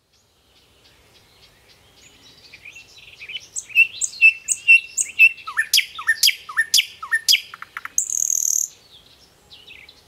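A songbird singing: soft twittering builds into a run of loud, sharp down-slurred whistles, about two a second, followed by a short harsh buzzy note and a few soft notes near the end.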